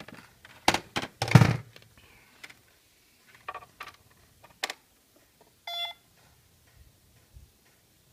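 Buttons on a bObsweep robot vacuum's charging base being pressed to reset its clock and schedule: a run of clicks and knocks, the loudest a little over a second in, then a single short electronic beep about six seconds in.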